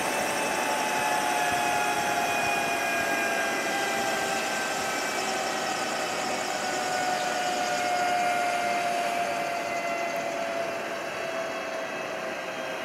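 Airbus Helicopters EC155 B1's twin turbine engines and turning rotor, a steady turbine whine made of several tones that slowly fall in pitch, fading a little near the end: the engines winding down as the helicopter shuts down on the pad.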